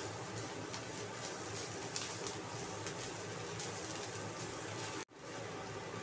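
Chopped dried salted radish sizzling in oil in a nonstick wok, stirred with a plastic spatula that scrapes across the pan. The sound briefly cuts out about five seconds in.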